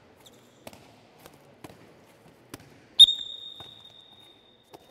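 Handballs being passed, bounced and caught, a soft slap about every half-second. About three seconds in comes a loud metallic bang that rings on in one high tone and fades over nearly two seconds.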